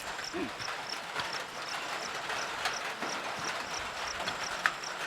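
Draught animals' hooves clopping and knocking irregularly on ploughed soil, with an insect chirping high and steadily about three times a second.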